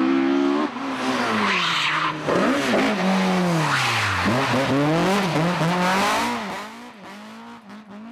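Ford Escort Mk2 rally car driven hard past: its engine revs fall and climb again several times through braking and gear changes, with a hiss of tyres now and then. The engine fades away near the end.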